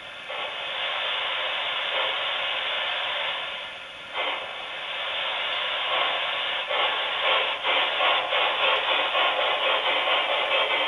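QSI Revolution sound decoder in a model C36 steam locomotive, playing through a tender-mounted speaker: a steady steam hiss, then exhaust chuffs that start about six seconds in as the locomotive moves off. The sound sits in a narrow middle band with little bass.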